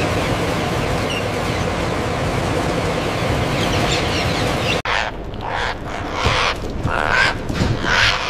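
A steady, dense din with a few faint chirps, then after a sudden cut, a run of harsh, short parrot squawks, several a second.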